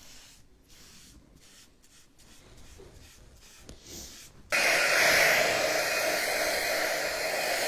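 Faint brushing strokes, then a handheld electric dryer switched on about four and a half seconds in, blowing steadily to dry freshly brushed-on paint.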